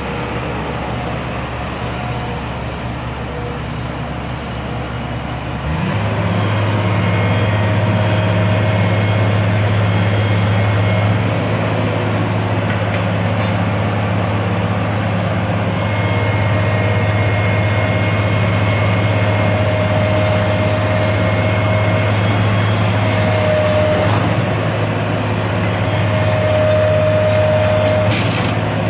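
Heavy road-construction machinery's diesel engine running steadily. About six seconds in it goes up to a louder, higher drone and holds there, with a thin whine rising above it at times.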